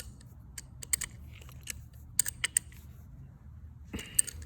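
Irregular light clicks and taps of a screwdriver and the plastic housing of a pressure washer spray gun being handled while its screws are tightened during reassembly. The clicks thin out after about two and a half seconds.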